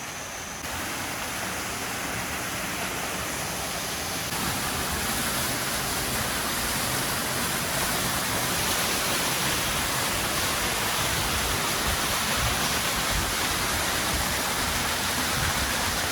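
Steady rushing of a waterfall, growing gradually louder as it is approached.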